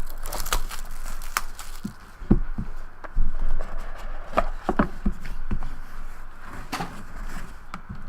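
A cardboard box of trading cards being opened and its contents handled: irregular scrapes, taps and crinkles of cardboard and wrappers.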